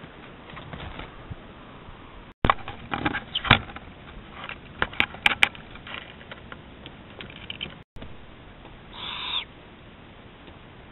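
Trail-camera audio of an owl, which the owners take for a spotted owl, on a house roof at night. A run of sharp clicks and knocks sounds as it moves on the roof and against the camera, and near the end comes a short harsh rasp of about half a second. The sound cuts out twice where short clips are joined.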